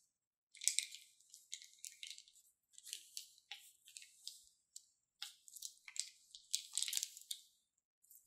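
Thin plastic piping bag crinkling and crackling as hands squeeze and twist it, in a series of short, irregular crackly bursts.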